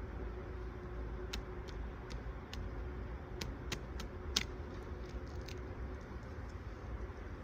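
Scattered sharp snaps and cracks of wood and bark, about nine in a few seconds and loudest about four seconds in, while horse hoof fungus is worked off a dead stump. A faint steady hum runs underneath.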